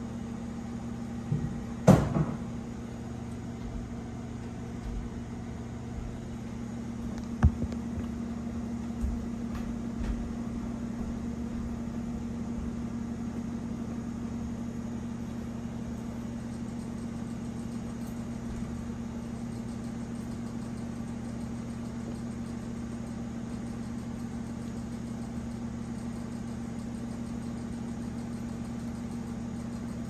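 Steady low machine hum, with a sharp knock about two seconds in and a smaller one at about seven and a half seconds.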